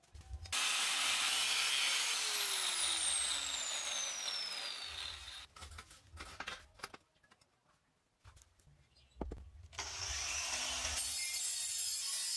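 Angle grinder with a thin cut-off disc cutting through a steel pipe, its high whine falling steadily as the disc slows. A few knocks follow as the pipe is handled, then from about ten seconds in a hand-held angle grinder is grinding the pipe's cut rim.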